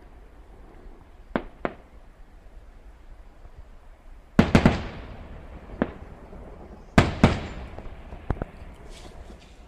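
Distant aerial fireworks shells bursting. A quick pair of light pops comes near the start, then loud bangs about four and a half and seven seconds in, each followed by a few quicker cracks, with smaller single pops between.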